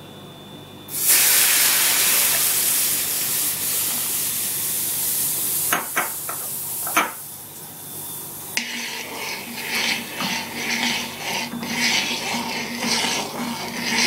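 Sodium hydroxide solution poured into just-heated oil in a metal pot, hissing and sizzling loudly for about five seconds, followed by a few knocks. Then a spoon stirs the frothy mixture in the pot, about two scraping strokes a second.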